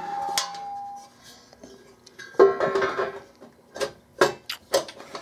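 Sheet-metal cover of a UPS battery cartridge being put back on: a fading metallic ring, then a clanging knock with ringing about two and a half seconds in, and several sharp clicks and taps near the end as it is pressed into place.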